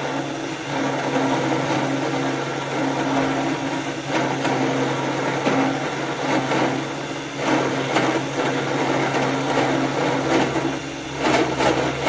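Cheap 775 DC motor spindle running a 10 mm end mill as it cuts metal: a steady motor hum under the rasping of the cut, growing louder for short stretches around four, seven and eleven seconds in.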